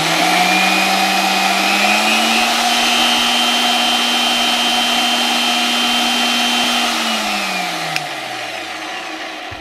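AOCKE AX16RE magnetic drill press motor spinning a twist bit with no load. It rises in pitch over the first couple of seconds to a steady whine, then slows down with falling pitch near the end, with a click just before it stops.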